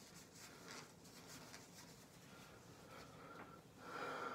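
Faint rubbing as eyeglasses are wiped clean of alcohol and topical spray, a little louder near the end.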